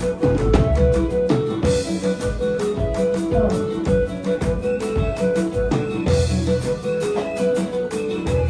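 Music: a plucked guitar plays quick, short repeated notes over a steady drum beat with low bass thumps.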